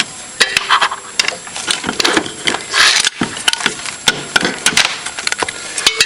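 Handling noise from a security cable and its cinch lock device: a quick run of clicks, knocks and rattles as the cable is taken out, with short scrapes about a second in and again near the middle.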